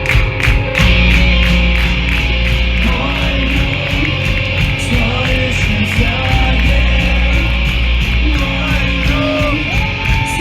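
Live punk band playing loud. Drums hit an even beat at first, then about a second in the distorted guitars and bass ring out in long sustained chords.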